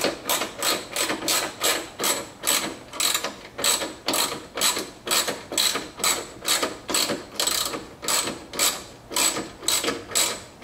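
Hand socket ratchet clicking in quick, even bursts, about two to three strokes a second, as the handle is swung back and forth to run a bolt down tight.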